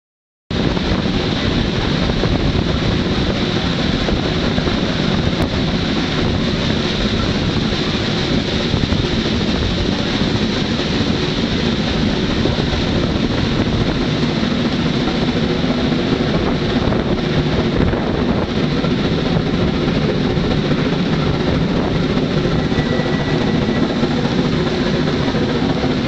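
Shay geared steam locomotives working hard upgrade, a loud, steady din of exhaust and running gear heard from the train, starting abruptly about half a second in.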